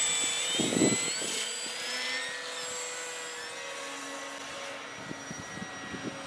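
Electric brushless motor and propeller of a radio-controlled model Piper Cub whining in flight, the pitch gliding up and down with throttle and distance, slowly fading. A brief low rumble about a second in.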